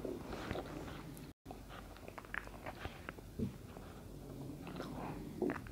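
Faint, irregular rustling and soft clicks of lace and fabric being folded and handled at a sewing machine, with a brief break in the sound about a second and a half in.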